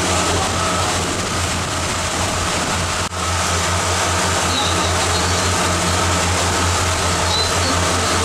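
Sightseeing riverboat's engine running steadily on board: a low, even drone with a faint steady whine above it and a hiss of wind and water. The sound drops out for an instant about three seconds in.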